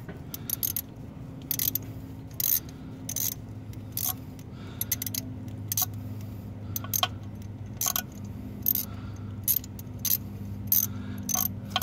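Irregular sharp metallic clicks of a ratchet and socket turned by hand, threading a bolt into place, over a steady low hum.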